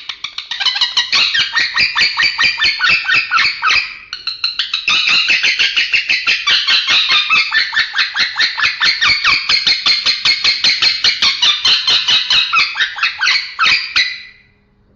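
Male lovebird singing a long, fast chattering song of rapidly repeated high chirps, about seven a second, an odd, unclear-sounding song. It breaks off briefly about four seconds in and stops near the end.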